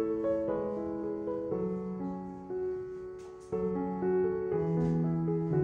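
Soft background piano music, held chords changing about every second.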